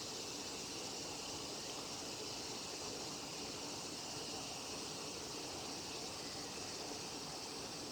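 Steady, unbroken high-pitched drone of insects, with no bird song standing out.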